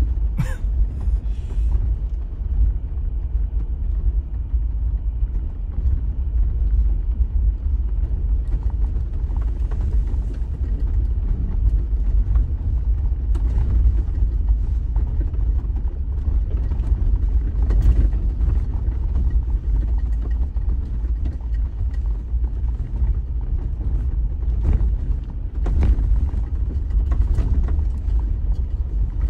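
Inside the cabin of a 4x4 driving slowly over a rough dirt track: a steady, deep rumble of tyres and drivetrain, with scattered knocks and rattles as the vehicle rides over ruts and stones.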